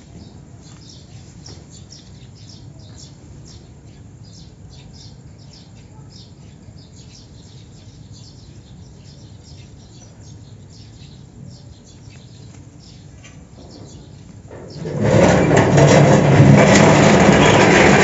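Faint background with scattered bird chirps, then about fifteen seconds in a rusty iron gate starts to open with a loud, sustained metal creaking and grinding.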